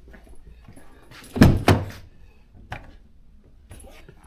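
Two solid thuds a third of a second apart, then a lighter knock about a second later.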